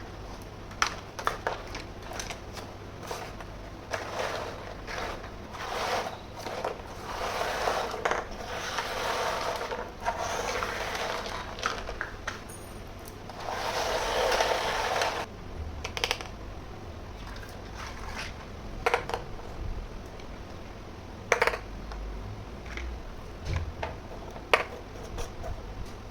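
Small plastic toy kitchen pieces being handled during unboxing: scattered clicks and clinks, with a few rustling stretches a second or two long.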